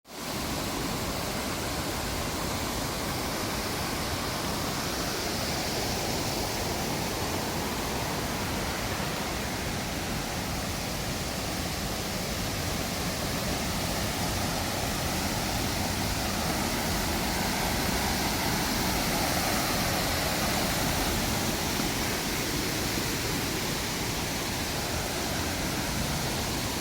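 Ontaki, the main fall of Nunobiki Falls, with its water falling in a steady, even rush of noise.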